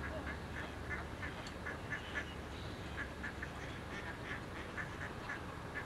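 Ducks on a pond quacking, a steady string of short calls a few per second.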